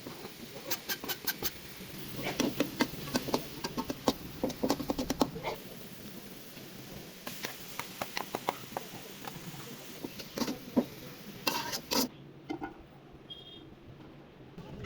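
Irregular clicks and knocks of hands and utensils at kitchen work, coming in quick clusters, then fewer and quieter after about twelve seconds.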